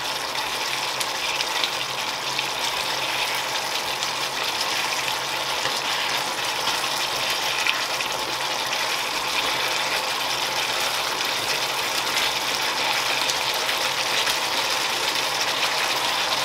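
Chicken masala sizzling and bubbling steadily in an open frying pan, with a spoon stirring through the sauce now and then.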